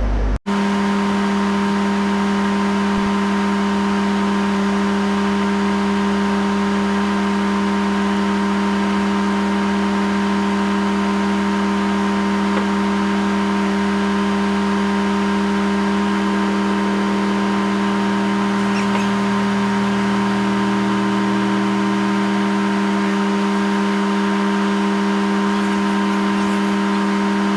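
Tractor engine running at a steady speed, with a constant hum and no change in pitch.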